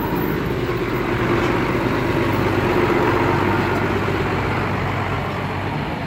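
A loaded dump truck's diesel engine running as the truck moves slowly along, a steady low hum that swells a little to its loudest about halfway through and then eases.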